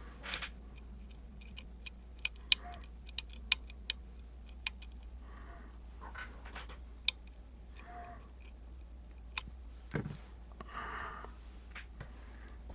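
Lock pick and tension wrench working the pin stack of an Emhart Black Belt lock cylinder: irregular small sharp metallic clicks and ticks as pins are set and released, with a few soft scraping rustles between them.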